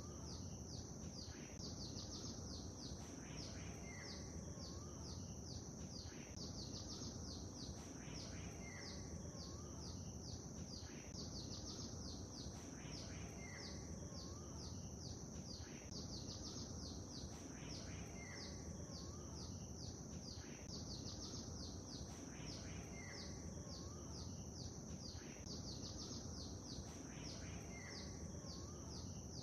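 Birds chirping over a low, even wash of lake water. Quick high chirps come thick and fast, and a short call repeats about every two and a half seconds.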